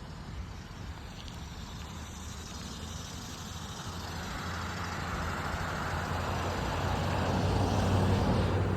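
Diesel locomotives of an approaching coal train, a low engine rumble with a steady drone that grows steadily louder as the train nears.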